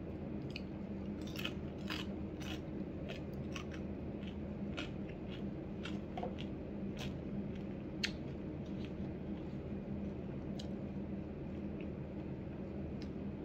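A galah eating bacon and egg off a plate: irregular sharp clicks and crunches of its beak working the food and tapping the plate, busiest in the first half, over a steady low hum.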